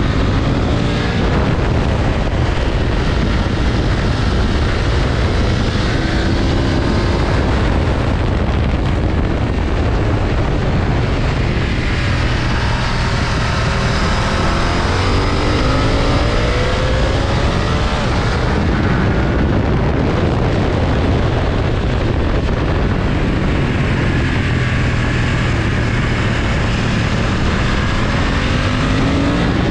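BMW F900XR's parallel-twin engine running under way. The engine note rises and falls several times over a continuous, loud mechanical and wind noise.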